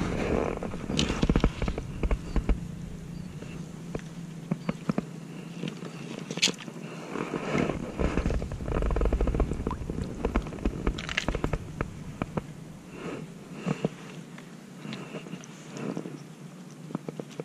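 Handling noise: scattered clicks and rustles from hands working among dry twigs and fishing gear. Low rumbling thumps on the body-worn microphone come near the start and again around the middle.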